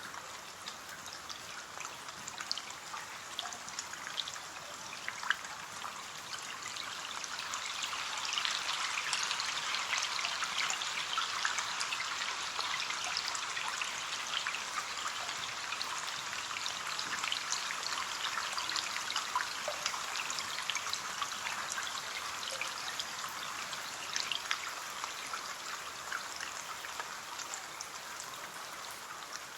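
Steady rain pattering on a window pane, with many small drops ticking on the glass. It swells a little heavier about a quarter of the way in.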